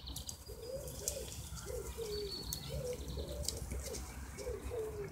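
A pigeon or dove cooing, a run of short, soft low notes repeated one after another, with small birds chirping faintly higher up.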